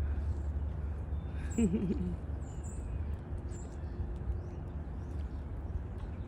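Small wild birds giving short, high chirps now and then over a steady low outdoor rumble. About a second and a half in, a person makes a brief wavering vocal sound.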